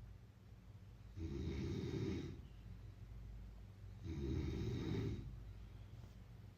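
A person snoring: two rough snores about three seconds apart, each lasting about a second, in a slow even rhythm.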